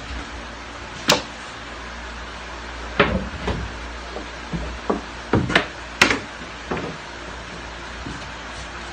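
Wooden knocks and clatters as cedar picket strips and a plywood jig board are handled and set down on a plywood workbench: one sharp knock about a second in, then a string of knocks from about three to seven seconds in, over a steady low hum.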